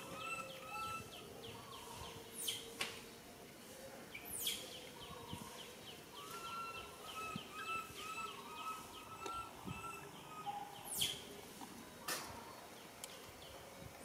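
Background bird chirping outdoors: runs of short repeated notes, about four a second. A few louder, sharp high calls sweep quickly downward, the loudest sounds, twice early on and twice late.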